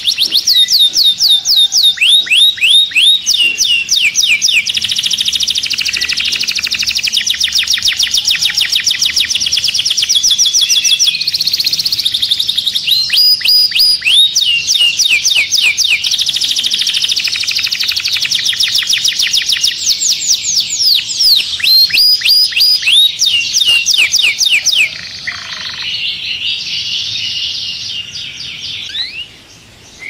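Domestic canary singing a long unbroken song of fast trills and rolls, rapid runs of repeated notes alternating with falling sweeps. About 25 seconds in, the song drops to a quieter, sparser warble.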